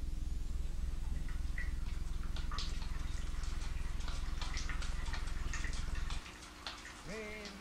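Steady low electrical hum on the soundtrack with scattered light clicks and ticks over it. The hum cuts off about six seconds in, and near the end a voice starts a tune.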